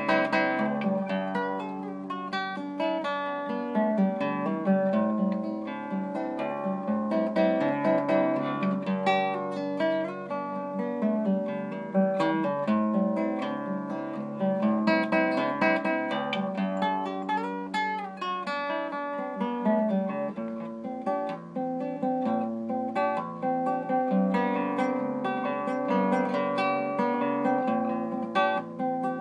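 Classical guitar played fingerstyle as a solo instrumental: plucked notes and chords ringing on and overlapping in a continuous melodic line.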